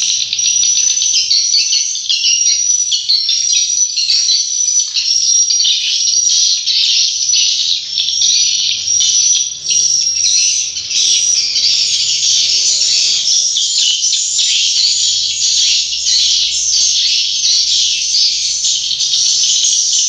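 A dense, continuous, really noisy chorus of high twittering chirps from a colony of edible-nest swiftlets.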